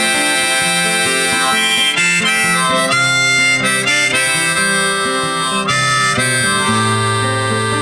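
Song music with harmonica playing over guitar, in an instrumental break between sung verses.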